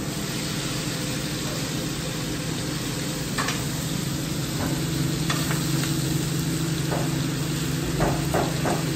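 Meat sizzling on a hot taqueria grill over a steady low hum, with a few sharp utensil clicks scattered through.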